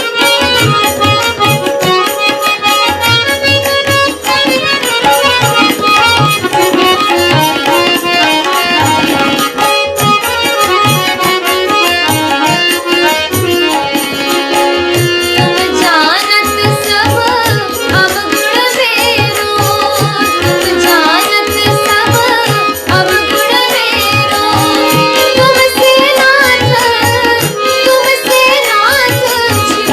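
Hindi devotional bhajan music: tabla strokes keep a steady rhythm under sustained melodic accompaniment. About halfway through, a melody line with bending, gliding pitch comes in over it.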